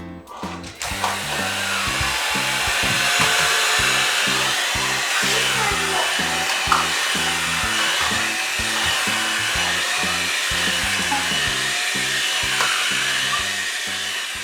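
Background music with a steady run of low notes, overlaid from about a second in by a loud, steady whirring motor noise that fades out near the end.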